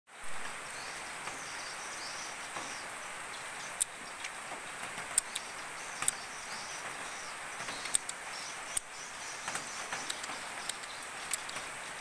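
Steady outdoor hiss with scattered sharp ticks and a few faint high chirps; no clear song.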